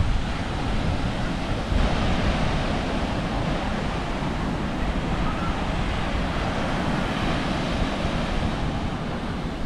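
Ocean surf washing onto a beach, a steady rush of waves, with wind buffeting the microphone.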